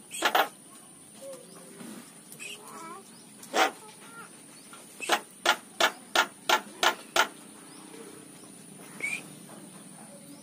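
Javan myna making short sharp clicking calls: one near the start, another a few seconds later, then a quick run of about seven, and a weaker one near the end, with faint warbling between them.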